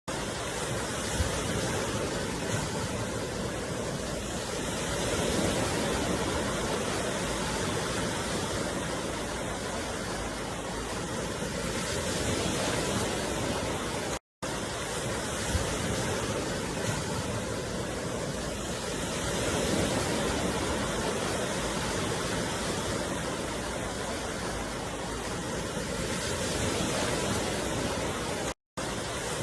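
Ocean surf washing on a beach: a steady rushing noise that swells and eases every several seconds. The sound cuts out for a moment twice, once near the middle and once near the end.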